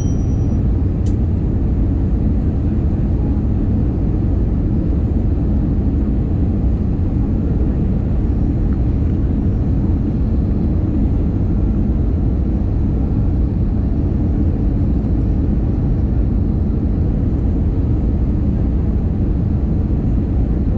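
Airliner cabin noise heard beside the engine: the steady low roar of the jet engine and rushing air during the descent on approach to landing.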